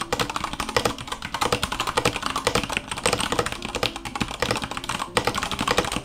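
Fast typing on an Iqunix L80 mechanical keyboard fitted with Cherry MX Brown tactile switches: a dense, continuous run of keystroke clacks, with a brief pause about five seconds in.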